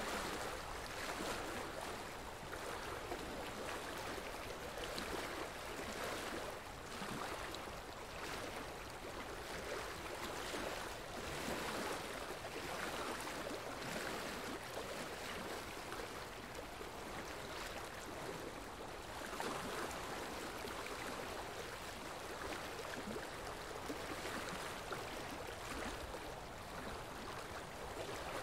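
A steady, even rushing noise, swelling and easing slightly now and then, with no clicks, tones or voices.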